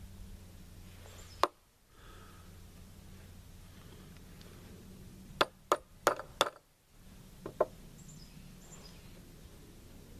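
Sharp metallic hammer taps on a rifle part, typical of driving a roll pin: a single tap, then a quick run of four about four seconds later, then two more close together.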